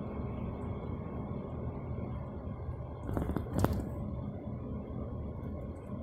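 Moving bus heard from inside the cabin: a steady low rumble of engine and road noise, with a short cluster of knocks and rattles about three seconds in.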